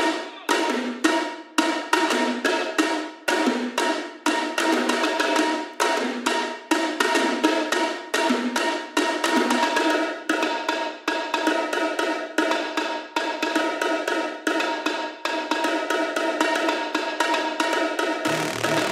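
Electronic music: a fast, busy pattern of dry, clicky percussion hits over held synth tones. A deep bass comes in near the end.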